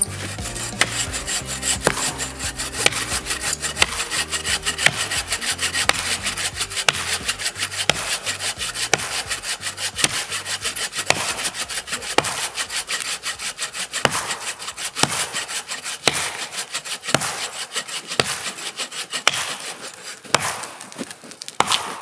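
A bow saw rasping through a dead log in quick, steady strokes, while an axe chops into a second log with sharp strikes every second or two.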